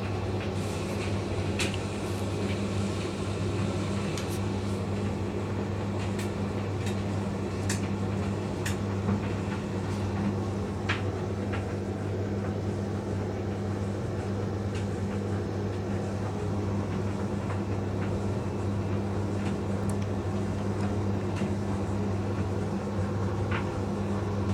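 Indesit IDV 65 tumble dryer running, its drum tumbling a load of coloured clothes: a steady motor hum with scattered light clicks.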